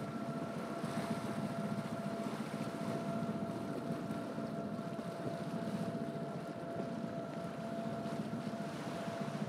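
A catamaran's engine running steadily under way, with a thin steady whine over its hum and water rushing along the hulls.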